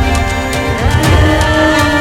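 Background music: dramatic theme music with sustained tones, a pulsing low beat and regular ticks.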